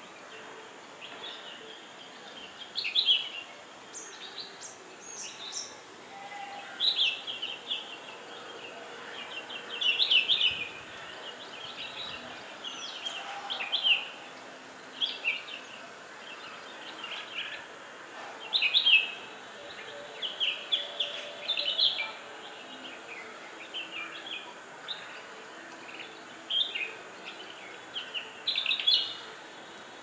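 Bulbuls calling: short chirping phrases repeated every second or two, over a steady background hiss.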